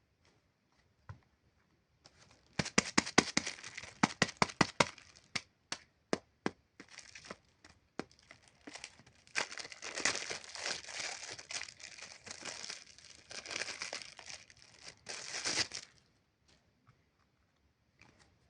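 Hands squeezing and stretching slime, giving a quick run of sharp sticky pops and clicks, then scattered pops, then a longer stretch of continuous crinkly crackling that stops shortly before the end.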